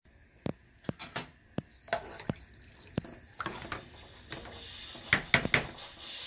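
Metal ladle clinking against a pot of simmering pork and water while foam is skimmed off, in a series of sharp clicks with a loud cluster of clinks a little after five seconds.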